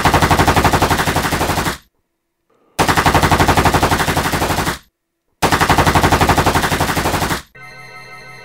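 Automatic rifle fire in three long bursts, each about two seconds of rapid shots at roughly ten a second, with short pauses between them. Near the end, quieter music with held organ-like notes begins.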